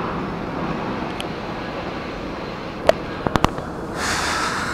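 Steady platform noise beside a stopped Keikyu 1000 series train. There is a sharp click about three seconds in and three quick clicks just after. About four seconds in, the sound changes to the steady rushing of a jet airliner passing overhead.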